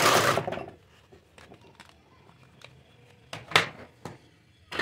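Hard plastic toy kitchen pieces clattering as they are handled and set down on a table: a burst of rattling at the start, light scattered clicks, then another sharp clatter about three and a half seconds in.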